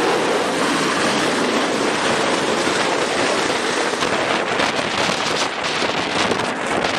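Fighter jet engines running on an aircraft carrier flight deck, a loud, steady roar mixed with wind buffeting the microphone.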